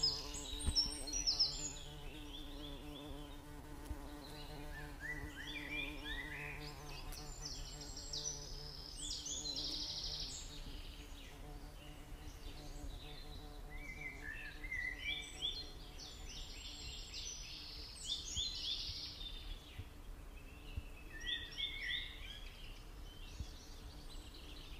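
Small birds chirping in clusters of quick, high notes that come and go every few seconds, over a faint low steady hum.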